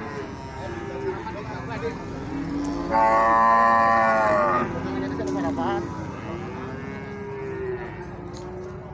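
A cow moos loudly once, about three seconds in, in one long call of about a second and a half. Fainter lowing calls come and go around it.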